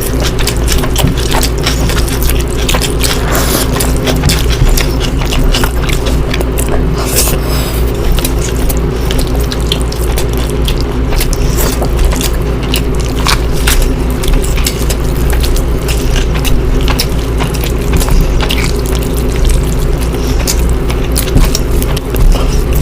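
Close-miked eating of curry and rice: wet chewing and mouth smacking, heard as a dense run of irregular crackly clicks.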